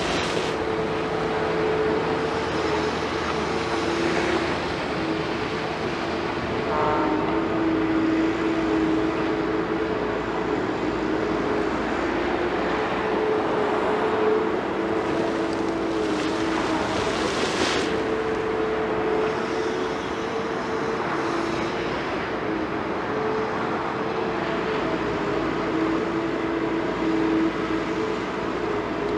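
Liebherr 946 hydraulic excavator working: diesel engine running steadily with a droning hydraulic whine that shifts slightly in pitch as the machine works, and a short burst of louder hissing noise about two-thirds of the way through.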